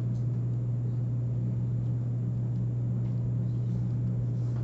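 Steady low hum of room background noise, unchanging, with a few faint ticks.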